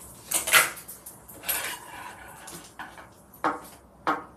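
Plastic takeout containers being unpacked: lids and plastic wrap pulled off with crinkling and clattering, in a few short bursts, the loudest about half a second in.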